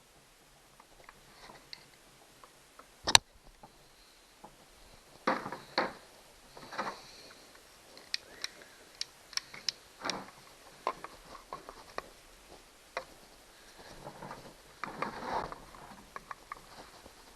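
Chainsaw parts and tools being handled during disassembly: scattered sharp clicks, light ticks and short scrapes of plastic and metal. The loudest is a single sharp click about three seconds in.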